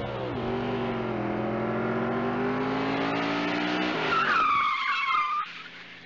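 Car engine revving, its pitch swinging up and down and then climbing slowly. About four seconds in, a burst of tyre screeching lasts just over a second, then the sound drops away.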